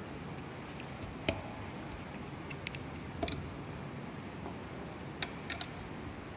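A handful of light, sharp clicks and taps, scattered unevenly, from brass plugs being pulled from and pushed into a plug-type resistance box. The resistance is being changed to bring the galvanometer to a deflection of 30 divisions. A steady background hiss runs underneath.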